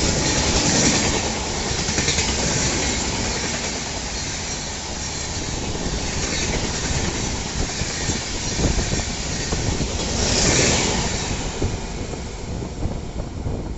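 The 12042 Shatabdi Express, a passenger train hauled by a WAP7 electric locomotive, passing close by at speed: a loud, steady rush of coach wheels on the rails with clattering over the joints, swelling twice as it goes.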